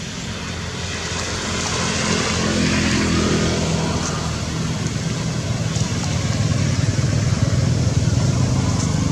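An engine running with a steady low hum, getting gradually louder.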